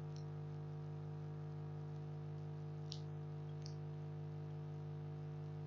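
Steady low electrical hum from the recording setup, with two faint clicks about three seconds in, typical of a computer mouse being clicked while erasing in Photoshop.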